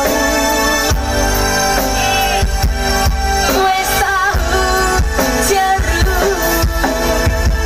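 Dangdut band playing through a large outdoor sound system: a singer's wavering melody over a heavy, steady bass and a regular drum beat.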